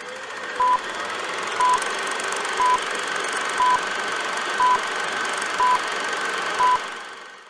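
Film-leader countdown sound effect: a short high beep once a second, seven times, over the steady whirring noise of a running film projector with faint clicks. The projector noise fades out near the end.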